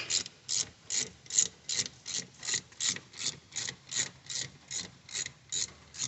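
Hand ratchet wrench clicking in quick, even strokes, about two and a half a second, as it turns one of the bolts that hold a wheel hub to the knuckle.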